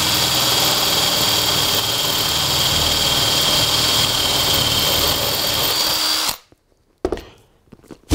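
Electric drill with a 10 mm spade bit running steadily as it bores through the wooden baseboard, a motor whine over the cutting noise; it stops suddenly about six seconds in. A few light knocks and rustles follow.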